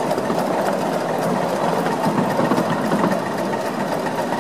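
Krauss-type 5-inch gauge miniature steam locomotive running along the track, a steady rapid mechanical clatter with quick fine clicks.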